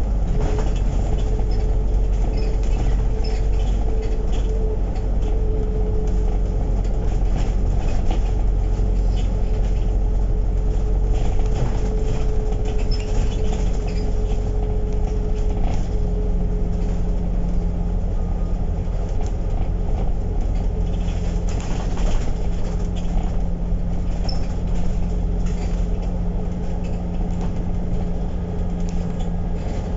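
Inside a moving KMB bus: steady low engine and road rumble with a whine that gives way to a lower hum about halfway through, and scattered light rattles.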